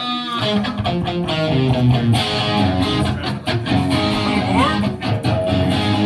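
Electric guitar being played, with a couple of notes sliding in pitch, near the start and again past the middle.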